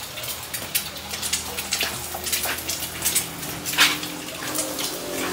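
Footsteps crunching and rustling through fallen leaves and twigs, in irregular crackles. A steady low hum comes in about two seconds in.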